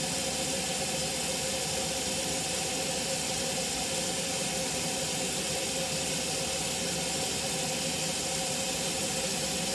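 Kitchen faucet running steadily, its stream splashing into a stainless steel sink.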